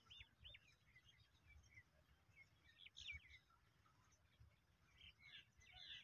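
Faint chirps and calls of small birds: a few quick rising-and-falling notes at the start, a cluster about three seconds in and a busier run of chirping near the end, over a low rumble.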